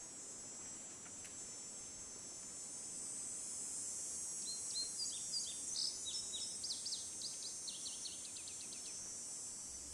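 Steady high-pitched insect chorus. About four and a half seconds in, a bird gives a run of short whistled notes that quicken and fall in pitch over about four seconds.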